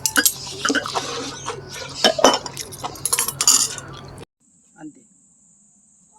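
Cutlery and dishes clinking amid eating sounds, the sharp clicks of spoon or chopsticks on bowls. About four seconds in it cuts off abruptly, leaving a faint steady high trill.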